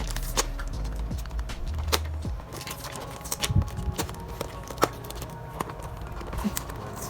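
Background music, with scattered clicks and knocks of packaging being handled and opened by hand.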